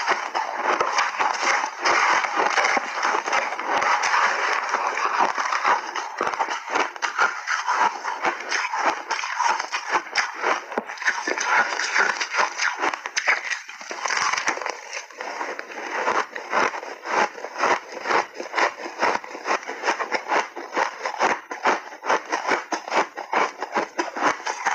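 Refrozen shaved ice being bitten and chewed close to the microphone: a dense, continuous run of crisp crunches and crackles.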